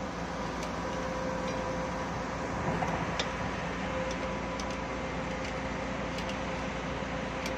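Diesel engine of heavy construction equipment running steadily with a constant hum, with a few sharp clicks.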